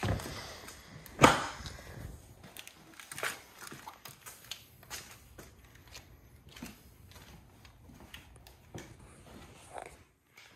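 Handling knocks and footsteps: a sharp thump at the start and a louder one about a second in, then scattered light knocks and steps.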